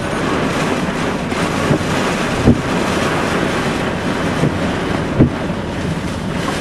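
Loud, steady rush of storm wind and heavy rain battering a moving car, near a rain-wrapped tornado. A couple of dull thumps stand out, about two and a half and five seconds in.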